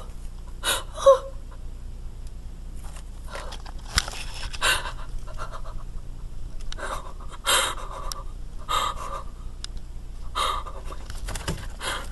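A person breathing hard and raggedly, panting with sharp gasps roughly once a second; the loudest are two gasps about a second in.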